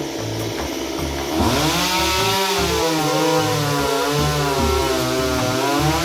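Chainsaw revving up sharply about a second and a half in, then running hard, its pitch dipping and rising under load as it cuts. Background music plays underneath.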